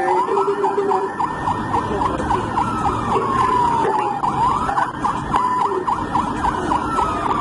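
Police sirens: one wails, falling slowly and then sweeping back up about every four seconds, over a second siren's rapid chirping yelp.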